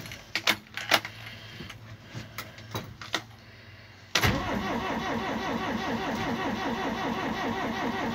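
A few light clicks and knocks, then about halfway through the starter cranks the 1969 Hanomag-Henschel F45's 2.8-litre four-cylinder diesel in a steady, even rhythm without it catching. It is a cold start of a cast-iron diesel that the owner puts down to the very long glow-plug preheating these engines need.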